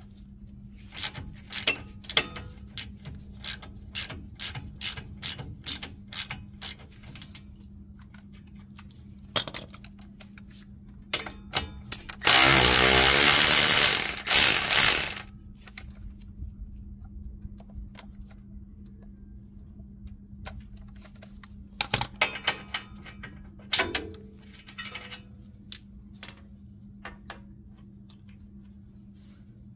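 Hand ratchet clicking in quick strokes as it loosens a tie rod end nut. Then a cordless electric ratchet runs loudly for about three seconds, spinning the nut off. A few scattered clicks and knocks follow later.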